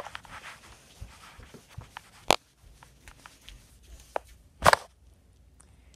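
Handling noise: scattered small clicks and taps, with a sharp click a little over two seconds in and a louder knock near the end.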